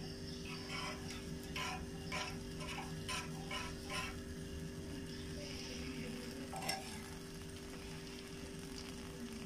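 A metal utensil stirring oil with ground coriander seeds in a metal frying pan, scraping and clinking against the pan about twice a second for the first few seconds, then stopping. Faint sizzling as the oil heats, a single knock about two-thirds through, and a steady low hum beneath.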